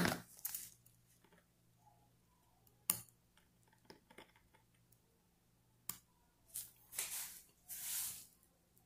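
Small steel watchmaker's tools, a screwdriver and tweezers, clicking against the keyless works of an Orient 59940 movement as the setting parts are taken out: a few sharp single clicks, about three seconds apart. Near the end come three short hissing, rustling noises, the loudest sounds here.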